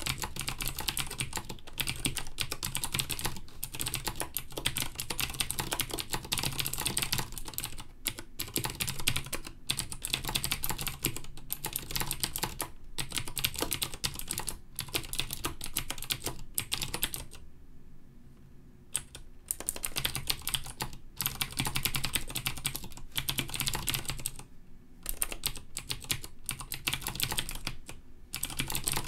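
Fast typing on a Filco MINILA mechanical keyboard with clicky Cherry MX Blue switches: a dense run of sharp key clicks, with two short pauses, one about two-thirds of the way in and one shorter a few seconds later.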